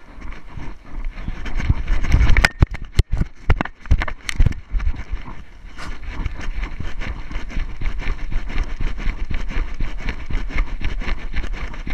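Wind rumble on the microphone of a camera strapped to a running dog, with knocks and rattles from the camera mount and harness as the dog moves. A run of sharp knocks comes about two to four and a half seconds in, then an even, fast rattle of jostling.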